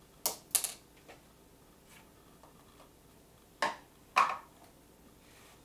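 Sharp clicks and knocks of kitchenware being handled on a counter: a steel tea kettle and a plastic pitcher with its cap taken off. There are two quick knocks near the start and two louder ones, about half a second apart, a little past the middle.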